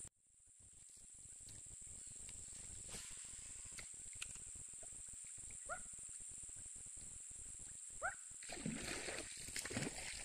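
Faint steady high-pitched insect drone, with two short rising chirps about six and eight seconds in. Near the end comes light splashing on the water's surface.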